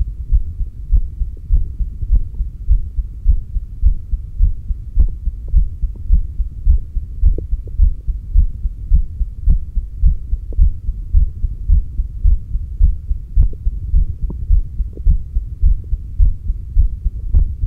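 A human heartbeat heard through a stethoscope on the cardiac apex: a steady, regular rhythm of low thuds.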